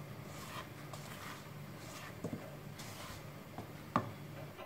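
Spatula folding sponge-cake batter in a stainless steel mixing bowl: faint, soft strokes through the batter and against the bowl, with one sharper tap about four seconds in.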